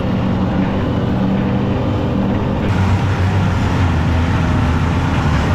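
Snowmobile engine running steadily at travel speed, heard from the machine itself, with track and wind noise over it.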